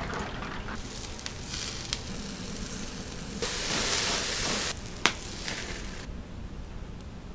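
Chicken skewers sizzling as they cook, with a louder burst of hissing about halfway through and a single sharp click just after it.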